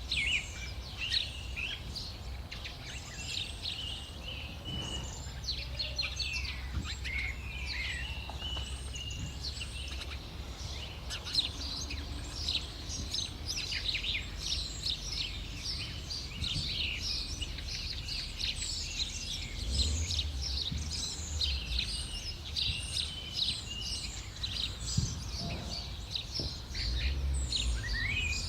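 Many small birds chirping and twittering continuously in a dense chorus, over a low background rumble.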